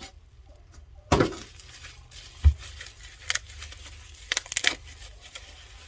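Packaging being handled and unwrapped: crinkling and tearing of wrapping material in short bursts, with a loud rustle about a second in and a low thump about two and a half seconds in.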